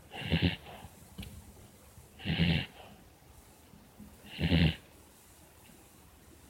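Pet dog snoring in its sleep: three short snores about two seconds apart.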